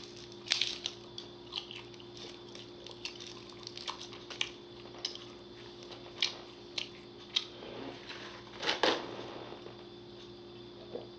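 Close-up mouth sounds of a person biting and chewing a Slim Jim meat stick: scattered wet clicks and smacks, with a louder cluster about two seconds before the end. A faint steady hum runs underneath.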